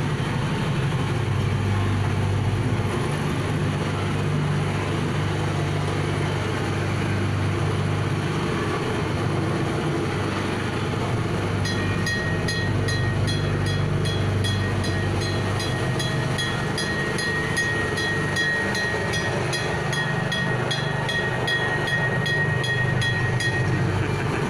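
A small tourist train's engine running steadily as the open carriage rolls along, a constant low drone. From about halfway, a fast even ticking, about three ticks a second, with a thin high tone joins in and stops shortly before the end.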